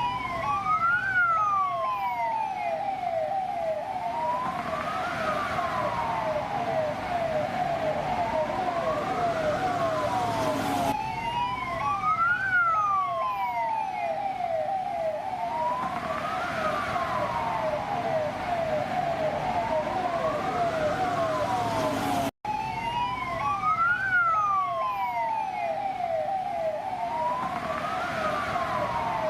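Police car siren: a slow wail that climbs quickly and falls away about every four seconds, layered over a fast yelp of rapidly repeated falling chirps. The sound cuts out for an instant about three-quarters of the way through.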